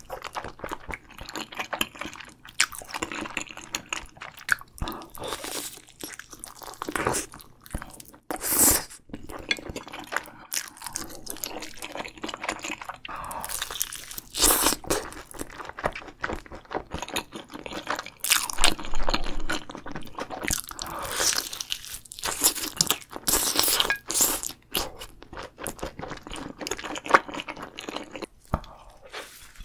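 Close-miked eating sounds, a person biting and chewing: first chewy rice cakes, then crunchy bites into the coating of fried chicken, with irregular crackles that come thickest about halfway through.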